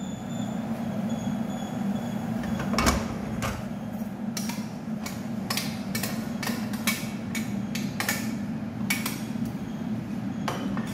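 Metal pans and spoon knocking and scraping as fried nuts and ghee are tipped from a small pan into a steel pot of boondi: a run of sharp knocks, about one or two a second, from about three seconds in, over a steady low hum.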